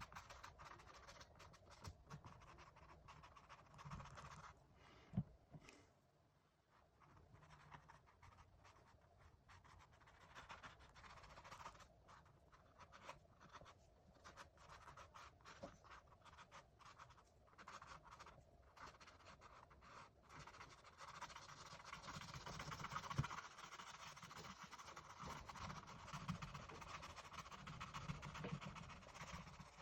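Faint, scratchy strokes of a paintbrush working oil paint on canvas, with a couple of soft knocks.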